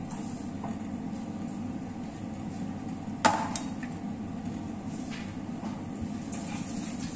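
A single sharp knock that rings briefly, about three seconds in, with a lighter knock just after, as cookware or a utensil is handled in the kitchen. Under it runs a steady low hum.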